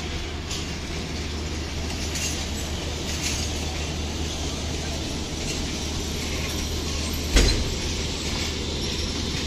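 Pakistan Railways passenger coaches rolling past slowly: a steady rumble of wheels on the track with a low hum and a few light clicks. There is one loud thump about seven seconds in.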